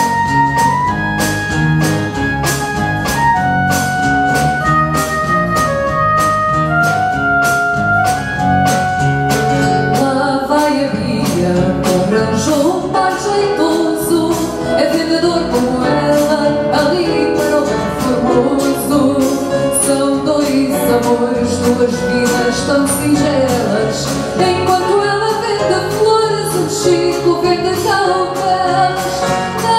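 A fado song performed live: about ten seconds of plucked guitar introduction, then a woman begins singing over the guitar accompaniment.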